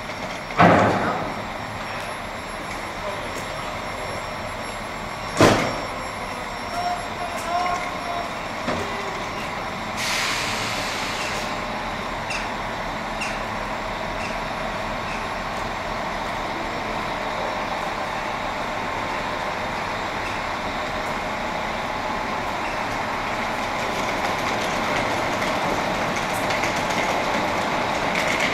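Intercity passenger train starting to pull out of a station: two sharp clunks about a second and five seconds in, a short burst of hissing air about ten seconds in, then the steady rumble of the coaches rolling slowly, growing a little louder near the end.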